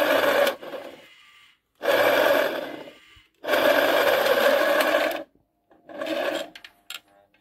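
Homemade electric winch with a wheel-rim cable drum running in four short bursts, each starting and stopping abruptly, the third the longest at under two seconds: a rasping mechanical whine as it is switched on and off to take in steel cable.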